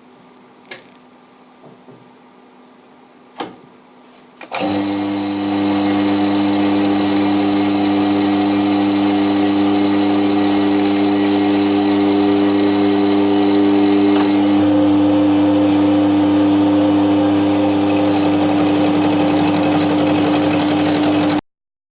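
Milling machine starting about four seconds in after a few light clicks, then running steadily at a constant pitch, with a slight change in its tone around the middle; machining the edge of a cast iron bandsaw table. It cuts off suddenly near the end.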